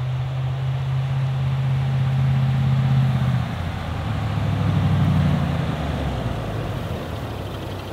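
First-generation Toyota Sequoia's V8 engine running as the SUV drives up toward and past the camera. The engine note grows louder, then changes about three and a half seconds in, and swells again as it passes.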